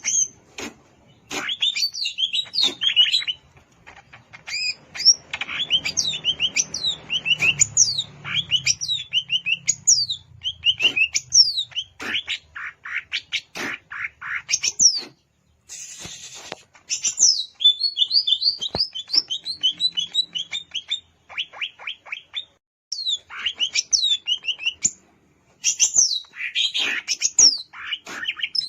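Green leafbird (cucak ijo) singing: rapid bursts of sharp, downward-sweeping whistled notes, broken by short pauses, with a brief rush of hiss about halfway through.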